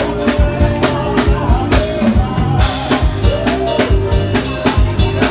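Loud forró music with a steady drum-kit beat under a sustained melody line.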